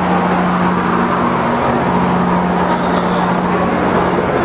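Steady mechanical drone with a constant low hum, holding level throughout.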